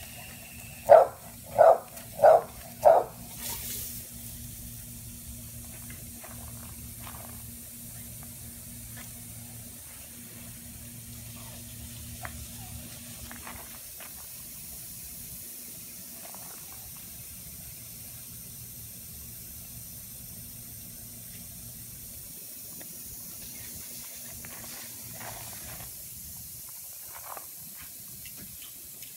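A dog barks four times in quick succession in the first few seconds, then the steady hiss of a lawn sprinkler's water spray runs on, with a few faint clicks.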